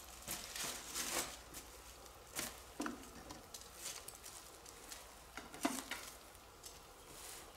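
Faint, scattered scuffs, taps and rustles of someone moving over rock and dry undergrowth with fishing gear, coming at irregular moments.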